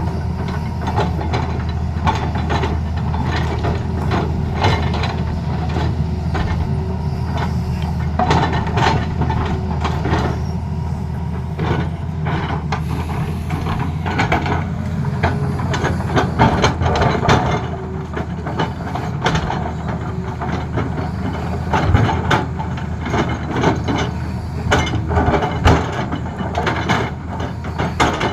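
Tata Hitachi excavator's diesel engine running steadily under load, with frequent irregular knocks and clatter from the machine working the ground.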